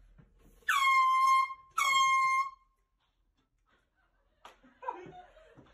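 Air horn blasting twice, each blast about a second long, its pitch sliding down briefly at the start and then holding steady. A click and faint voices follow near the end.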